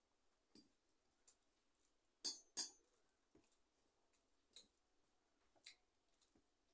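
Sharp clinks and taps of a hand knocking against a stainless steel plate while rice is mixed by hand. Two loud clinks come close together about two seconds in, with fainter ones scattered before and after.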